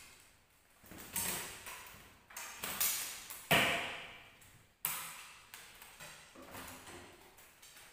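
Leather wayang kulit puppets being handled against the screen and frame: a run of sharp knocks and clatters, each with a short ringing tail, the loudest about three and a half seconds in.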